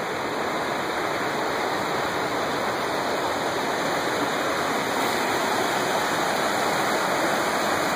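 Steady rush of a rocky mountain river's rapids pouring over boulders, growing slightly louder.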